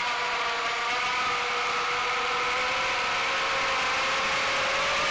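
Small brushless drone motors (RCX1407 3200kv) and propellers whining at a nearly steady pitch, part-throttle after a throttle-down, starting to climb again right at the end.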